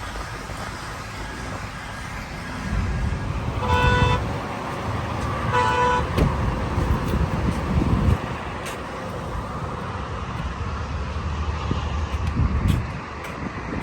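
Two short car-horn toots about two seconds apart, over low, steady road and traffic rumble.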